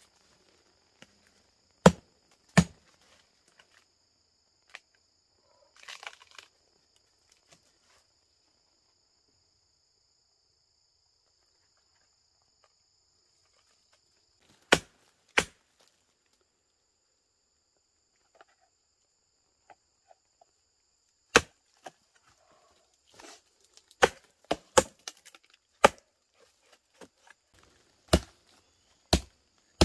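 Machete chopping into a rotting palm trunk: sharp single blows a few seconds apart, then a quicker run of several strokes a little past the middle.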